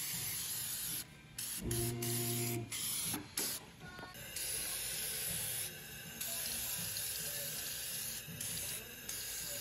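Aerosol can of Fluid Film hissing as it sprays through its extension straw onto a car's underbody. It goes in short bursts at first, then gives a longer, steadier spray from about four seconds in. A brief low hum comes about two seconds in.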